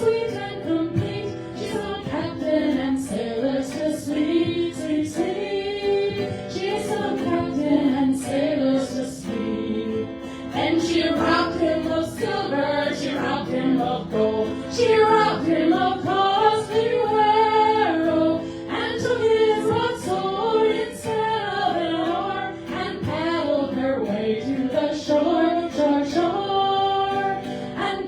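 A small group of women's voices singing together in harmony.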